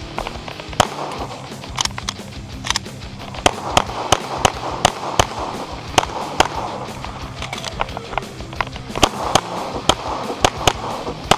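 Pistol shots fired rapidly during a practical shooting stage, in quick pairs and short strings with brief pauses between them.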